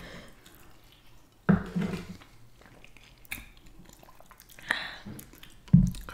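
Quiet close-miked eating and drinking sounds: small wet clicks and a sip from a glass of water, with two short low bumps, one about a second and a half in and one near the end.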